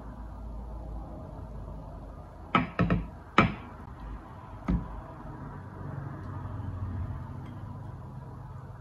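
Glass bowl knocking against the rim of a glass dish as soup is tipped out of it: a quick cluster of sharp knocks, then one more knock about a second later.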